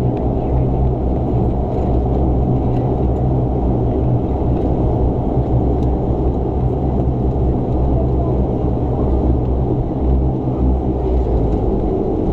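Cabin noise of a Dash 8 Q400 turboprop rolling along a wet runway: a steady low drone and rumble from the engines and propellers.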